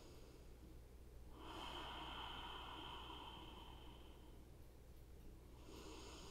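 A person's slow, soft breath, about three seconds long, starting about a second in, with another beginning near the end; a faint steady low hum underneath.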